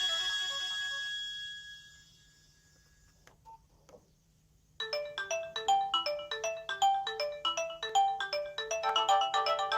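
Nokia 2310 mobile phone ringtones: the last notes of one ringtone fade out over about two seconds. After a quiet gap with a couple of faint clicks, the next ringtone starts about five seconds in, a quick melody of short stepping notes that fills out with more parts near the end.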